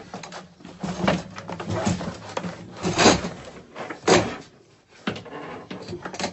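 Clattering and thumps as a freshly caught bobcat is handled into a cage, with two loud bangs about three and four seconds in.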